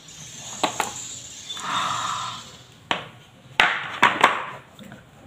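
Hard plastic case of a HIMI gouache jelly-cup paint set being handled and opened: a brief rubbing slide of plastic on plastic, then several sharp clacks and knocks as the case and its paint cups are set down and lifted apart.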